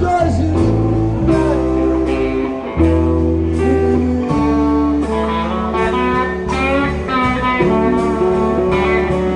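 Live rock band playing an instrumental passage: an electric guitar line with bent, wavering notes over held bass notes and drums.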